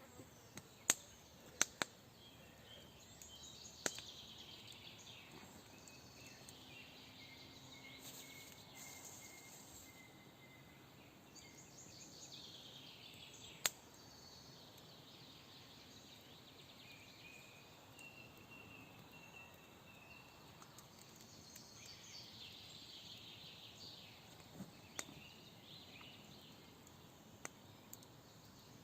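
Faint woodland ambience with small birds chirping and singing on and off. A few sharp cracks or snaps break in, the loudest about 14 seconds in.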